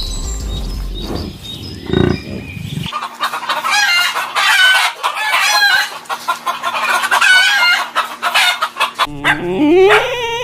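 Chickens clucking and calling in quick, repeated short calls, with a rooster among them, starting about three seconds in. Near the end a dog's rising whine follows briefly.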